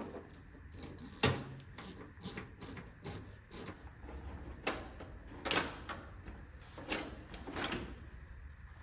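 A string of short, sharp clicks and taps from plastic emblem fasteners being worked into a tractor grille by hand. The taps come several a second at first and thin out to a few spaced ones.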